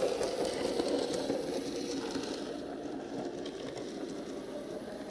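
Model railway goods train running along the track: a steady rolling rumble of wheels on rail with light clicks, loudest at first and easing off after about two seconds.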